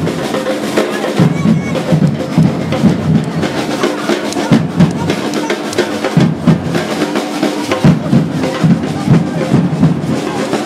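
Batucada drum group playing a steady rhythm on bass drums and snare drums.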